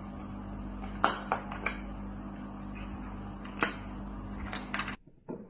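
Sharp cracks and clicks of a pufferfish biting on a shellfish shell, a few scattered strokes, over a steady low aquarium hum. Everything cuts off about five seconds in.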